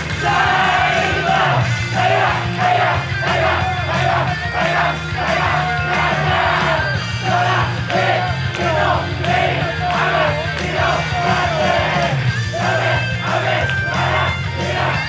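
Female idol-group vocals sung live into handheld microphones over a loud pop backing track with a steady bass beat, with the audience shouting along.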